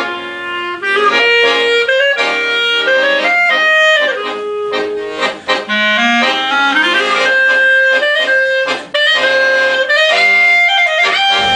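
Chromatic button accordion and clarinet playing a tune together as a duo, with a rising run of notes about seven seconds in.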